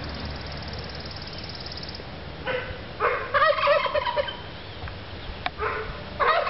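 Domestic turkey gobbling: a long, rapidly warbling gobble about three seconds in and another starting near the end, with a couple of shorter calls between.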